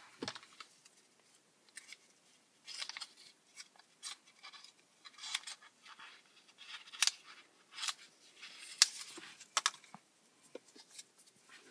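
A small sealed wipe packet being torn open and the cleaning wipe pulled out: scattered short crinkling rustles and sharp little clicks.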